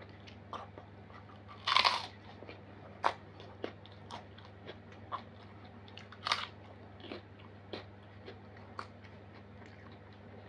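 Close-miked crunchy eating: two loud crunching bites, about two seconds in and again about six seconds in, with quieter chewing crunches between them.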